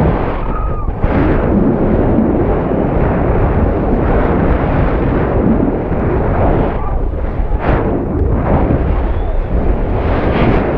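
Wind buffeting the microphone of a high-altitude balloon payload camera as it falls under its parachute after the balloon burst. It is a loud, gusting rush that never lets up.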